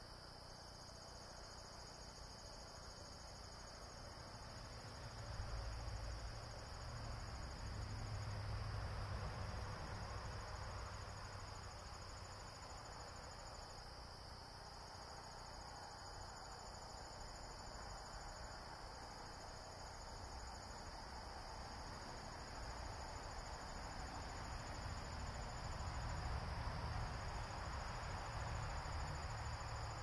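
Evening chorus of crickets and other insects: a steady, unbroken high-pitched trilling. Underneath it, a low rumble swells about five seconds in and again near the end.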